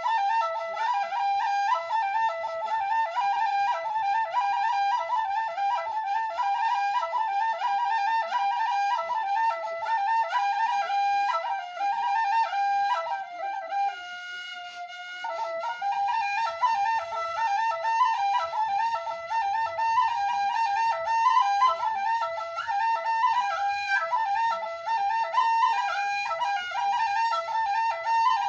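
Background music: a solo flute playing a quick, ornamented melody, with one long held note about halfway through.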